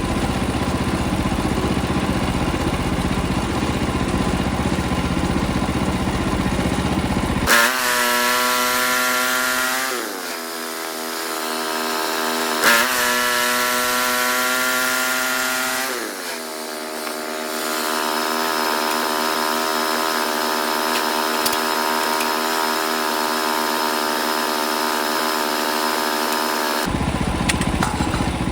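Portable sawmill's gasoline engine running while the bandsaw blade cuts a thin slice off the top of a white pine log. About seven seconds in the sound changes abruptly to a clearer, higher engine note, which sags in pitch twice as the engine takes load.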